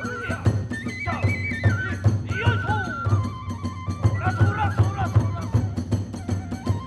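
Kagura festival music: a high bamboo flute playing a stepped melody over a quick, steady taiko drumbeat with sharp hand-cymbal strokes.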